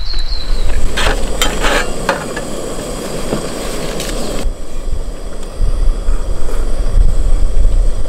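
Wind buffeting the microphone, a steady low rumble that eases from about a second in and builds again in the second half. A few light clicks and knocks sound early on against a hissing background, fitting cutlery and cups being handled.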